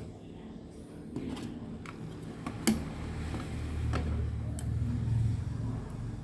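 A few sharp clicks, the loudest about three seconds in, over a low rumble that swells in the second half.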